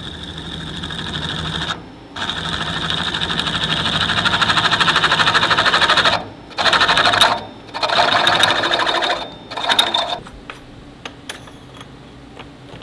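A twist drill bit cutting into a small round metal part, a steady grinding whir with a fine rapid ticking that grows louder as the bit goes deeper. It breaks off briefly a few times and stops about ten seconds in, leaving a low machine hum and a few light clicks.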